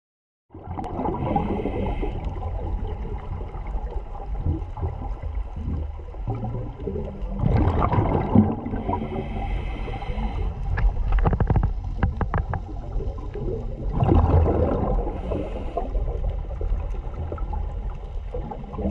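Underwater sound picked up by a submerged camera: steady low rumbling water noise with two louder swells of bubbling noise, and a short run of sharp clicks around the middle.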